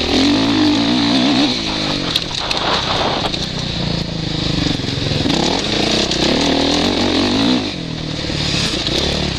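Suzuki RM-Z450 single-cylinder four-stroke motocross engine under riding load, heard from the helmet; the revs climb and fall repeatedly with the throttle, dropping sharply about eight seconds in.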